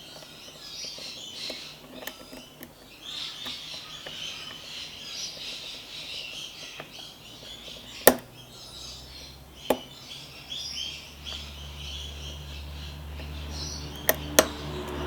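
Birds chirping steadily in the background, broken by a few sharp metallic clicks from lock picks working the pins of a padlock: one about eight seconds in, one about two seconds later, and two quick ones near the end. A low hum comes in around the middle and grows.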